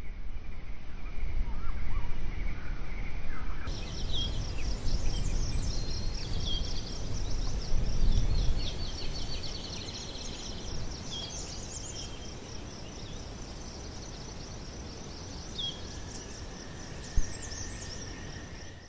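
Birds chirping and singing over a low rumbling noise that is loudest in the first half and eases off after about ten seconds. A single sharp click comes near the end.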